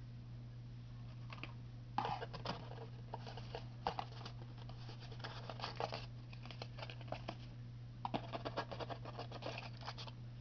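Hands handling packaging and boxed products: two spells of quick scratching, rustling and light tapping, over a steady low hum.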